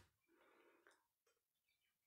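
Near silence: a pause in speech with only very faint room tone.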